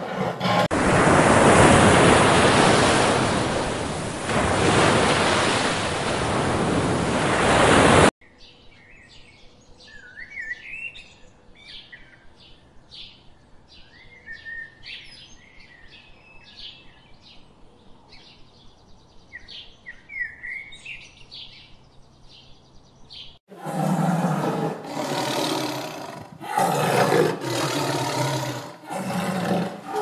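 A loud, steady rushing noise that cuts off suddenly after about eight seconds. Then birds chirp and sing over a quiet background, and near the end deep animal roars come in loud repeated bursts.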